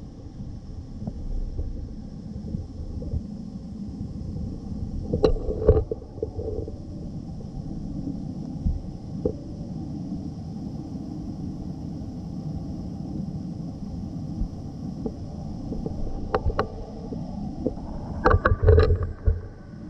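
Muffled, steady low rumble of stream water heard through an underwater camera housing, with a few sharp knocks about a quarter of the way in and again near the end.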